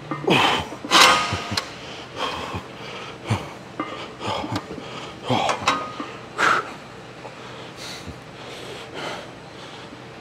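A lifter's hard, forceful breaths and exhales, about one a second, during a continuous high-rep set of leg work. The breaths ease off in the last few seconds.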